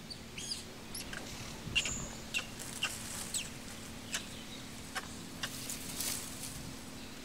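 Forest ambience of short, sharp bird chirps and clicks, about one every half second to a second, with one brief high whistled note about two seconds in.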